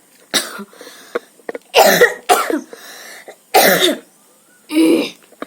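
A person coughing over and over, done on purpose for a coughing challenge: about five loud, separate coughs, roughly one a second.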